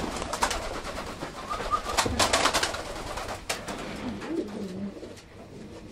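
Domestic pigeons cooing low, with a few sharp clicks and knocks around the middle.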